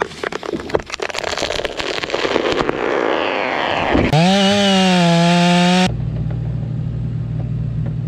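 A felled tree cracking and splintering as its hinge tears and the trunk goes over. About four seconds in, a STIHL 500i chainsaw revs up and holds at high revs. It is cut off abruptly by the steady low hum of a mini excavator's engine.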